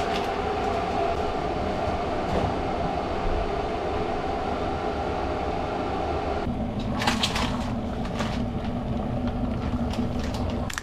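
Steady mechanical rumble with a faint hum, like an appliance or ventilation fan running. The hum drops in pitch about two-thirds of the way in, and a few light clicks or clatters come soon after.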